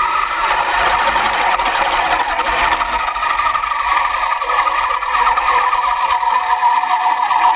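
Electric motor and gears of a Feiyue FY03 Eagle-3 1/12-scale RC car whining at speed, the pitch wavering a little and sagging slightly near the end.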